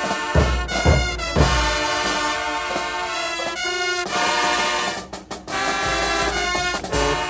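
Marching band playing: brass section holding chords over bass drum hits, with a few drum hits about half a second apart near the start and a brief break in the sound about five seconds in.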